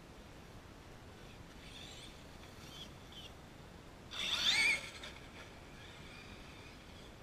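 Brushless electric motor of a Traxxas E-Revo RC monster truck, converted to the Mamba brushless system, whining as the truck runs. It passes close by about four seconds in, loud for under a second with its pitch rising as it accelerates; before and after it whines more faintly at a distance.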